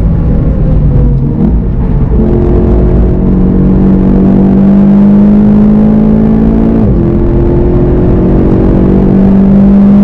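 2019 VW Golf GTI TCR's turbocharged 2.0-litre four-cylinder engine pulling hard under acceleration, heard from inside the car. The note climbs steadily, drops sharply at an upshift about seven seconds in, then climbs again.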